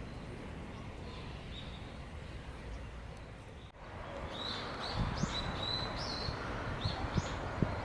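Small birds chirping, short repeated chirps over steady outdoor background noise, louder after a cut about four seconds in, with a few low thumps near the end.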